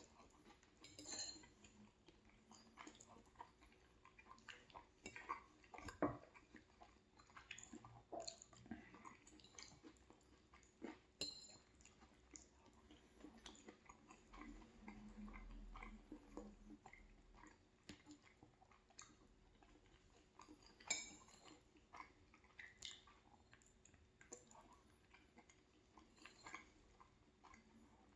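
Quiet chewing of soft pasta, with scattered small clicks and clinks of cutlery on a dish; the sharpest clicks come about six seconds in and again about twenty-one seconds in.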